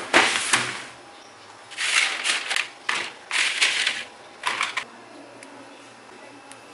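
Crisp baked bread sticks clattering and scraping across a metal baking tray as a hand sweeps them together, in four bursts over the first five seconds.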